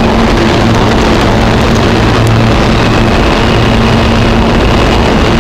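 New York City subway train at the platform: a loud, steady rumble with a low hum, and a faint high whine joining about three seconds in.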